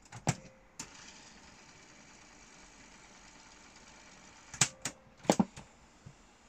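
Piano-key cassette transport buttons on a Ferguson 3T17 radio cassette player clunking as they are pressed and latched: a few sharp clicks at the start and another cluster about four and a half seconds in, with a faint hiss from the set between them.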